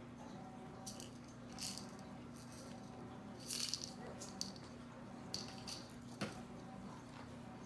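Something small being shaken, rattling in a handful of short irregular shakes, the loudest about halfway through, over a faint steady hum.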